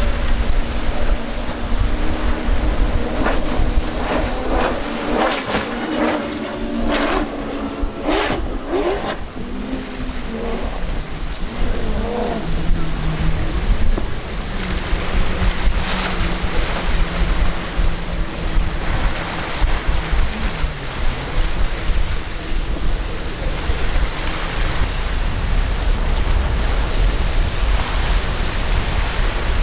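Powerboat outboard engines running at speed through choppy water, their pitch rising and falling, over surf and heavy wind on the microphone. At the start the engines are the twin Mercury Racing 450R outboards of a Wright Performance 36' speedboat.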